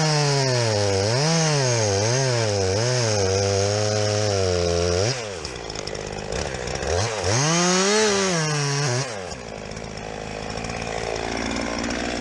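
Chainsaw cutting into a tree trunk, its engine pitch rising and dipping as the chain bites, while the felling notch that sets the tree's direction of fall is cut. About five seconds in it drops back, revs up once more, and then runs lower and quieter.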